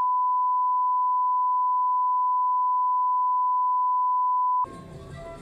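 Steady 1 kHz line-up test tone, one unwavering pitch at constant level, which cuts off abruptly a little over four and a half seconds in. Music with a voice comes in right after it.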